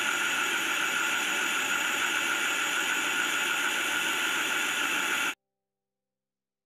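Sujata mixer grinder's motor running at a steady high whine as it blends watermelon pieces with sugar and water into juice. The sound cuts off suddenly about five seconds in.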